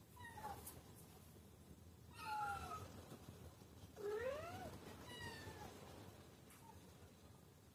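Cats meowing: three meows, the last one the longest, rising and then falling in pitch, as kittens crowd in to nurse.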